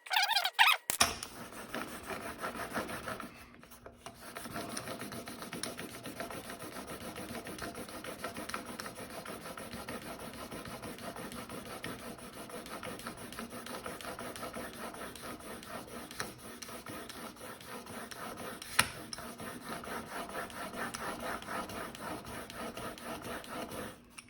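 Steel single-bevel broadhead in a KME sharpening jig being stroked back and forth on 800-grit sandpaper over glass: a steady, rhythmic rasping scrape, with a brief pause about 3.5 seconds in and a single sharp click near the end. A few loud squeaks come in the first second.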